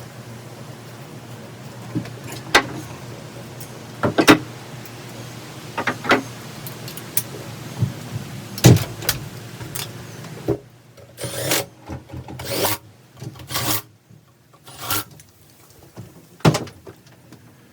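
Sharp knocks and clinks of parts being handled and fitted as an ATV's rear hub goes onto its wheel, over a steady low hum. About ten seconds in the hum stops and a run of short scraping and rubbing sounds follows.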